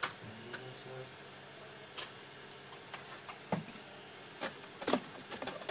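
Scattered light clicks and knocks, a second or so apart, as small objects are handled, with a faint murmur of a voice near the start.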